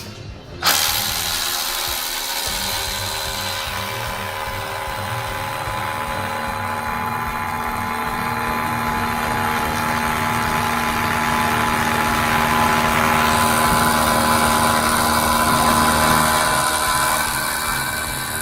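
Makita DHR263 cordless rotary hammer drill running: it starts abruptly about a second in and then runs steadily, getting slightly louder later on.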